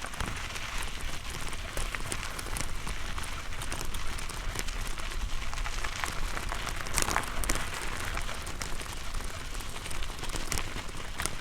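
Mountain bike tyres rolling over a rough gravel road: a steady gravelly crunch full of small crackles and clicks, starting suddenly as the bike gets going, with a low rumble underneath.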